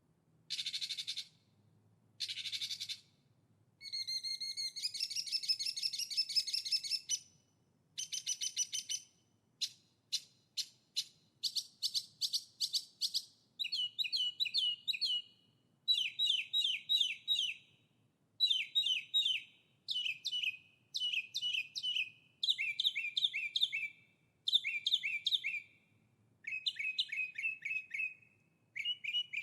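A songbird singing a long series of short phrases, each a quick run of repeated chirping notes, with brief pauses between them.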